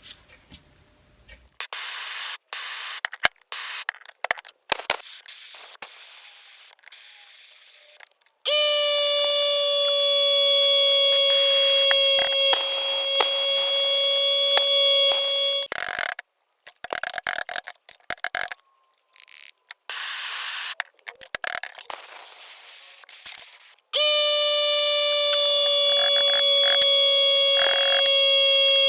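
A power tool runs with a steady high-pitched whine for about seven seconds, stops, then runs again for about five seconds near the end. In between come irregular scraping and knocking sounds of metal being worked.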